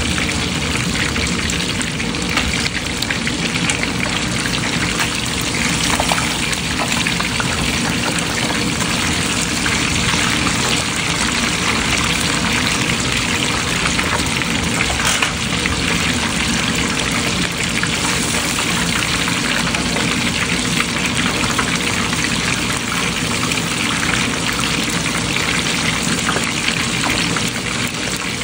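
Whole snapper deep-frying in a pan of hot oil: steady, loud sizzling and bubbling.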